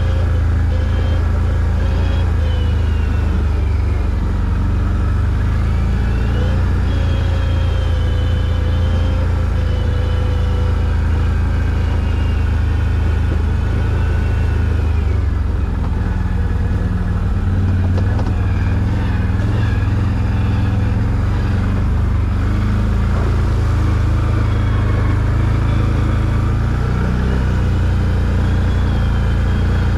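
ATV engine running as the quad crawls over a rough, muddy forest trail, with a steady low rumble and its pitch rising and falling gently as the throttle changes.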